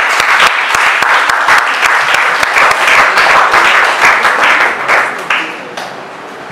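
Audience applauding: many hands clapping together, which dies away about five and a half seconds in.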